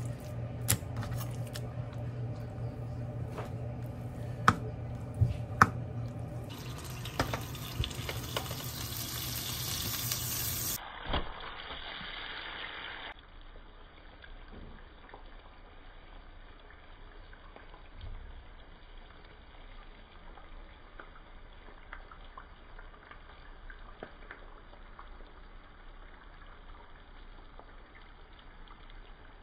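Raw beef skirt steak handled on a wooden cutting board, with a few sharp knocks over a steady hum, then a loud rushing hiss for several seconds. After that, sliced onions cook gently in oil in a frying pan with a faint, steady sizzle and small pops.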